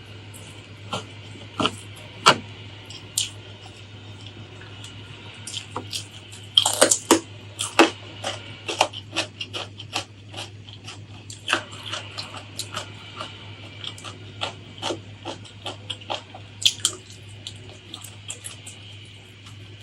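Close-miked eating: irregular crisp crunches and wet mouth clicks of chewing, densest a few seconds in, over a steady low hum.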